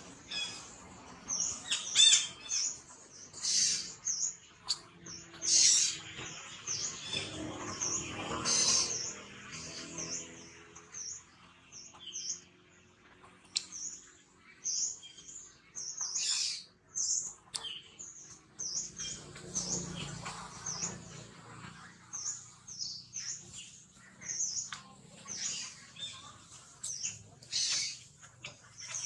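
Small birds chirping, many short high-pitched calls repeated quickly, with a few louder calls in the first several seconds.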